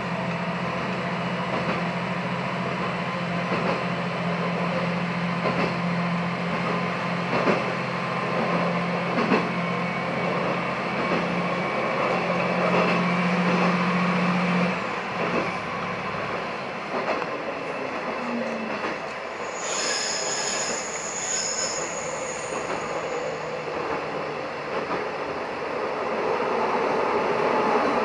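KiHa 120 diesel railcar running along the line, its engine droning steadily until about halfway through, when the engine note drops away. Wheels click over rail joints throughout, and a brief high wheel squeal comes about two-thirds of the way in.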